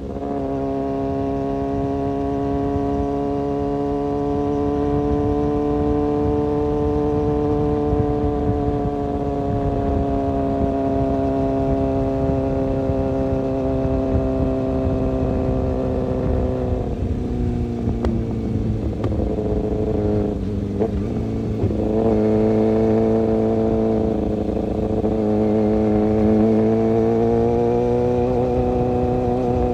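Kawasaki ZX-6R inline-four motorcycle engine running, its note holding fairly steady for the first half. About halfway through it drops and turns rough for a few seconds, then steadies and climbs again near the end.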